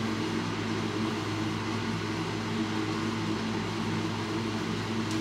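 Steady hum of a running ventilation fan, a constant low drone that does not change.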